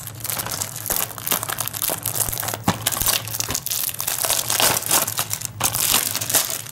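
Plastic shrink wrap being picked at and peeled off a Blu-ray case by hand: continuous irregular crinkling and crackling of the thin film, with sharp snaps as it tears and comes away.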